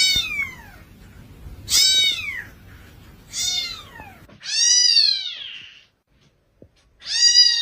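A cat meowing five times: three short calls that fall in pitch, then two longer calls that rise and fall, the last beginning near the end.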